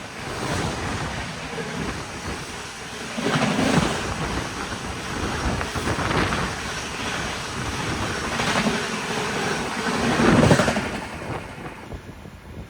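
Express train's coaches rushing past at about 130 km/h: a dense noise of wheels on rail and displaced air, with wind buffeting the microphone. It swells sharply about three and a half seconds in and again near ten seconds, then eases off just before the end.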